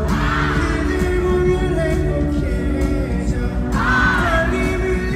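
Live pop song heard from the arena audience: a man sings into an amplified microphone over the band or backing track. Bursts of crowd yelling come near the start and again about four seconds in.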